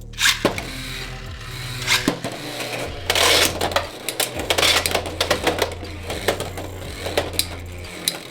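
Two Beyblade X spinning tops, Wizard Rod 1-60 Rush against another Wizard Rod, launched together from a double launcher with a sharp burst just after the start, then spinning and clashing in the plastic stadium as rapid clicking and clattering, busiest from about three seconds in.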